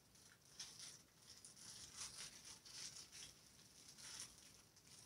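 Faint crinkling and rustling of a small plastic bag being handled and opened by hand, in a series of short, irregular crackles.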